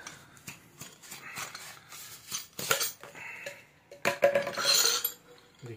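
Steel SDS chisels clinking and knocking against each other as they are worked out of their plastic sleeve, in scattered small clicks and rattles. The loudest clatter comes about four seconds in, with a brief metallic ring.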